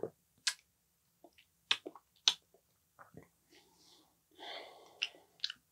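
A person tasting a mouthful of beer: several short wet lip smacks and tongue clicks, with a breath about four and a half seconds in.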